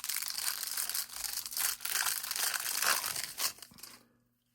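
A hockey card pack's foil wrapper being torn open and crinkled by hand: a dense crackling rustle that stops near the end.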